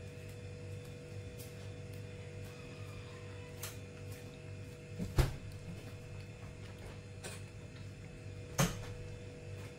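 Steady low hum with a few short knocks and clicks, the loudest about five seconds in and another strong one near the end.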